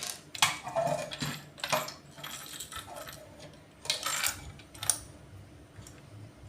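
Small metal connector hardware, screws and lock washers, clinking and clicking against each other and the work surface as it is handled, in several short scattered clinks.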